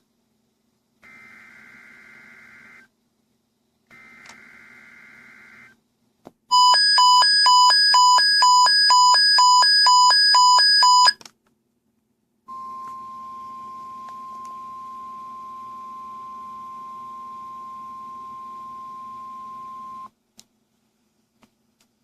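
Emergency Alert System SAME header: two short buzzy digital data bursts, the last repeats of the header, then a loud rapid electronic beeping at about three beeps a second for nearly five seconds. After that comes the NOAA Weather Radio 1050 Hz warning alarm tone, one steady tone held for about seven and a half seconds that signals the start of the weekly test.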